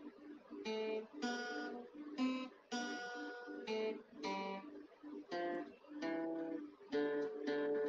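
Background music: an acoustic guitar strumming a run of chords, each starting sharply and ringing briefly before the next.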